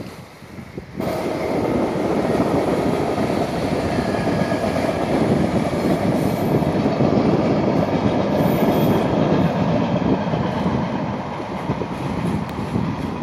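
Passenger train passing along the line, a loud continuous rolling noise that comes up suddenly about a second in and holds, with a few thin high tones over it.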